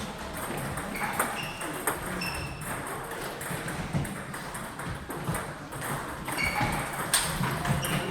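Table tennis balls clicking off bats and tables, a scattering of short sharp pings at irregular intervals.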